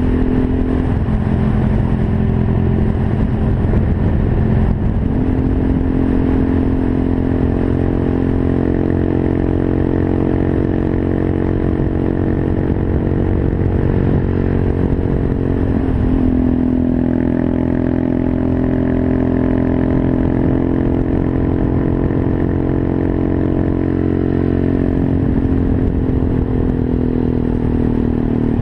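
Small single-cylinder monkey bike engine running steadily under load while riding. Its note shifts about 5 and 16 seconds in and again near the end, as with a gear change or a change in throttle.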